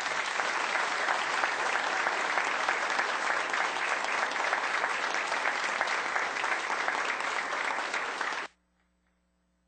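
Audience applauding steadily for about eight seconds, then cutting off suddenly.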